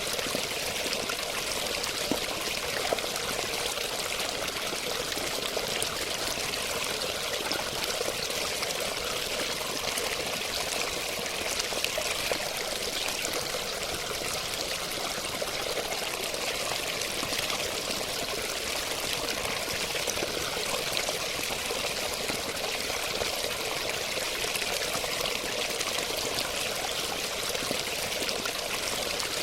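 Running water: a steady, bright, hissing rush that stays even and unbroken.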